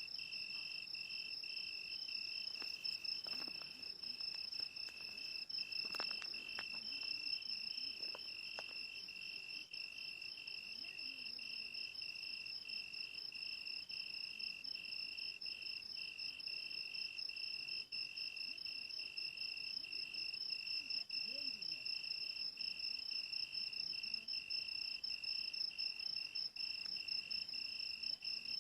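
Crickets chirping in a steady, unbroken chorus of fast, even high-pitched trills.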